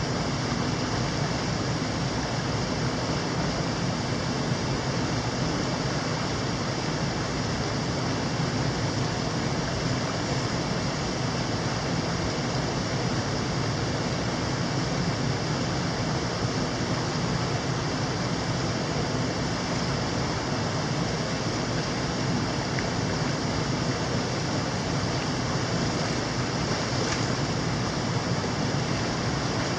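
Mountain stream rushing steadily, an even unbroken water noise.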